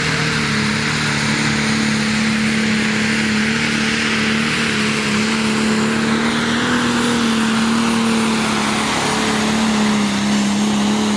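Pro Stock pulling tractor's turbocharged diesel engine running flat out during a pull. It holds a loud, steady drone whose pitch sinks slowly as the run goes on.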